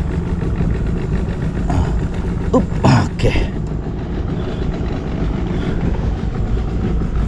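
Small boat's outboard engine idling steadily, with a few brief knocks about three seconds in.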